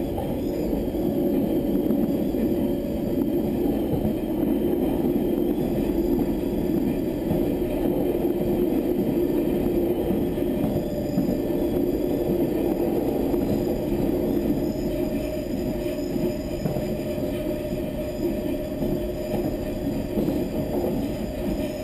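Wellington suburban electric multiple unit running along the line, heard from its cab: a steady rumble of wheels and running gear, with a faint steady whine that shows briefly early and returns about halfway through.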